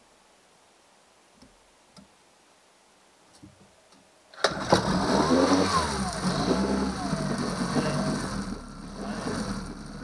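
Yamaha 6 hp single-cylinder four-stroke outboard catching suddenly about four and a half seconds in and then running, its pitch rising and falling. Before that there are only a few faint clicks.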